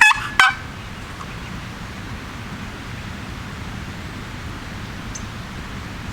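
A quick series of turkey yelps, each note breaking from low to high, ending about half a second in, followed by a steady low outdoor hiss.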